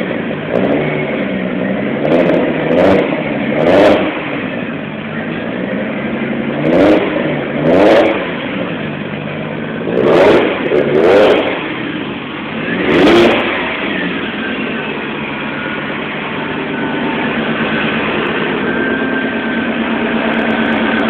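Turbocharged 1JZ-GTE VVT-i inline-six, swapped into a Lexus IS300, running after start-up. It is blipped about eight times in short revs over the first 13 seconds, heard at the exhaust, then settles to a steady idle.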